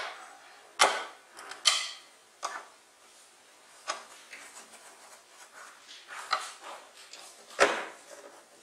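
A hand screwdriver driving screws into the plastic back cover of an LED TV at its stand mount. About half a dozen sharp clicks and knocks come at uneven intervals, the loudest about a second in and near the end.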